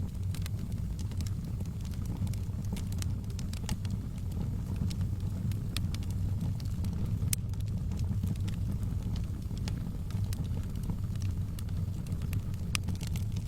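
Wood fire in a fireplace crackling, with frequent sharp, irregular pops and snaps over a steady low rumble.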